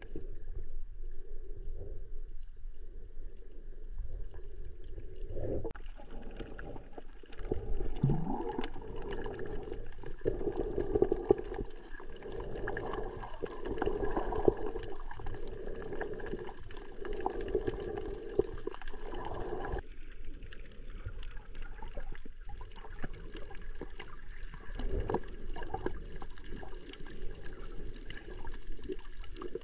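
Underwater water noise picked up by a submerged camera while snorkeling, a steady swishing wash that swells irregularly from about 6 to 20 seconds in.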